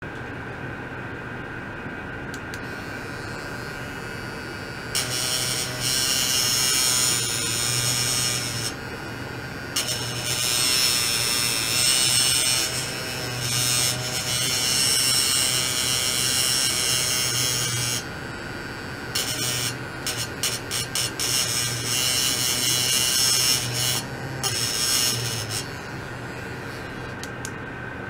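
Electrical buzzing with hiss from ultrasonic test equipment on a lab bench. It comes and goes in stretches of several seconds, flickering on and off near the middle, over a steady high whine and a low hum.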